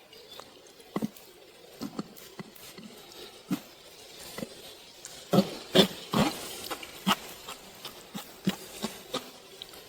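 Cooked rhubarb juice draining through a strainer: irregular drips falling into the collected juice, with a louder run of wet drips and squishes about five to six seconds in.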